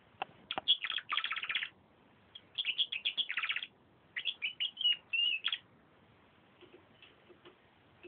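Domestic canary singing in three quick phrases of rapid trills and chirps, the last ending about five and a half seconds in; a few faint clicks follow.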